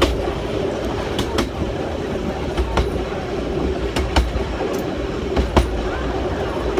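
Train carriage running along jointed track: a steady rumble with a clickety-clack of wheels crossing rail joints. The clicks come in quick pairs about every second and a half.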